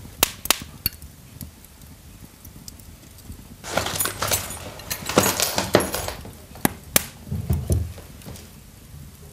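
A wooden box being emptied onto a wooden floor: a few light clicks, then about four seconds in a burst of rustling paper and clattering notebooks and small objects with several sharp knocks, and a dull thump near eight seconds in.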